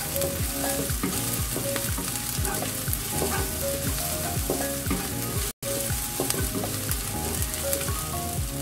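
Sliced shallots and garlic sizzling in hot oil in a wok as they are sautéed until fragrant, with a wooden spatula scraping and stirring them round the pan. Light background music plays underneath, and the sound cuts out for an instant about halfway through.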